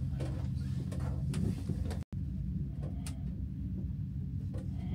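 Steady low hum inside a moving aerial cable car cabin, with a few faint clicks. The sound cuts out for an instant about two seconds in.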